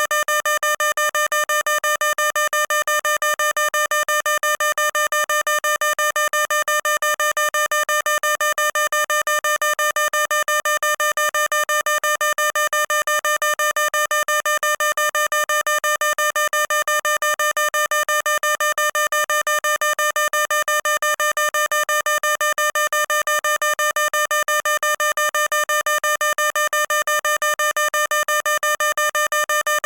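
Fire alarm sounding: a single electronic tone beeping rapidly and evenly, without a pause or change in pitch.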